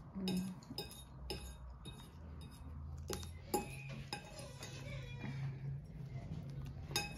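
Sticky homemade slime being kneaded and pulled between the hands, giving a run of small, sharp wet clicks and smacks.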